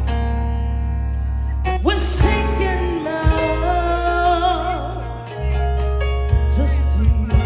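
Gospel song with heavy bass and drums, a singer's voice coming in with an upward slide about two seconds in and holding wavering sung notes.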